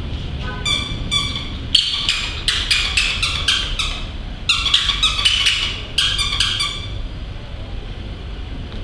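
Pomeranian yapping: quick runs of short, high-pitched barks in several bursts, stopping about seven seconds in.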